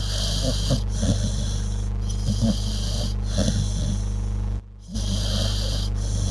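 Dog snoring in its sleep, in short uneven bursts about every second. Under it runs a steady hum and hiss, which drops out briefly about two-thirds of the way through.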